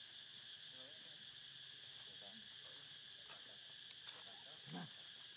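Steady, high insect drone in the background, with faint distant voices and a short, faint call near the end.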